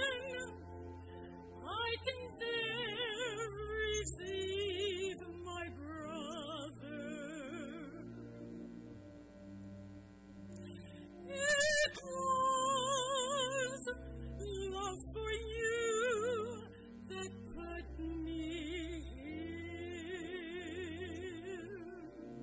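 A woman singing a solo with a strong vibrato, phrase by phrase, over a sustained chordal accompaniment.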